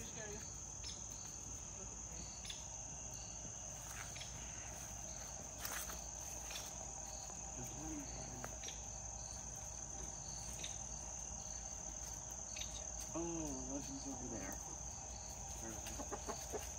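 Crickets trilling steadily in a continuous high chirr, with a few short, soft, low clucks from chickens about eight seconds in and again around thirteen to fourteen seconds.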